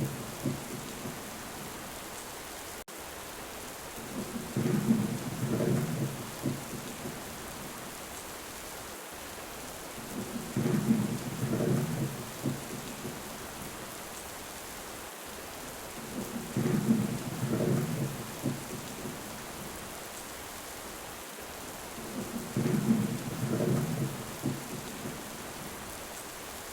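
Steady heavy rain with rolls of thunder, a deep rumble about every six seconds at even intervals.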